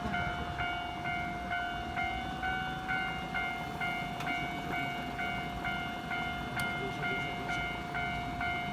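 Japanese railway level-crossing warning bell ringing, its electronic clang repeating evenly about twice a second over a steady held tone. This is the signal that a train is approaching the crossing.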